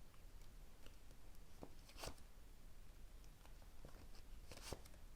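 Near silence with a few faint clicks and rustles, about four in all, of tarot cards being handled and laid down on a table.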